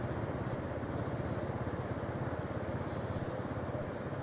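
Motor scooter's small engine running steadily while riding, heard from the rider's seat, with a fine rapid pulse in its low drone.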